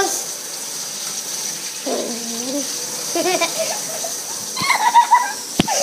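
Tap water running into a sink, a steady hiss, with a few short wordless voice sounds about two, three and five seconds in and a sharp knock near the end.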